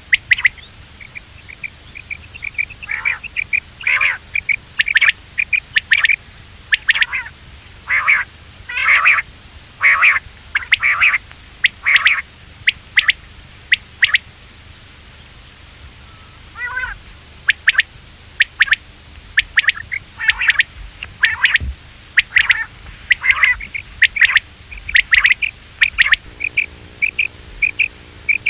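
Quail calling over and over in short, sharp notes, several in quick succession, with a pause of about two seconds midway.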